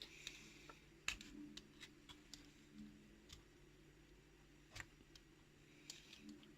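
Near silence with faint, scattered clicks and taps of small tools being handled, one louder click about five seconds in.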